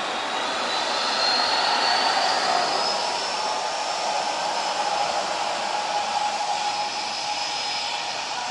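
Jet airliner engines at takeoff power: a loud, steady rushing noise with a high whine that rises in pitch over the first few seconds and then holds.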